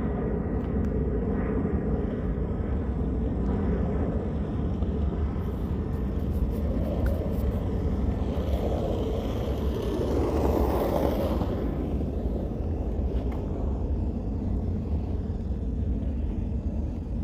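Low jet rumble of a McDonnell Douglas MD-11F trijet freighter climbing away after takeoff. It swells briefly about ten seconds in, then eases off.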